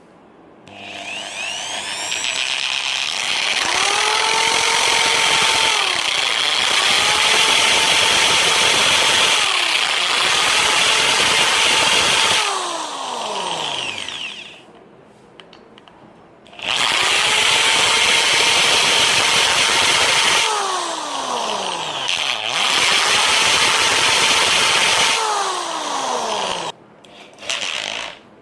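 Electric drill boring a hole into a wooden perch branch. The motor spins up with a rising whine and runs steadily in two long runs, each winding down with a falling pitch, with a few short bursts between them.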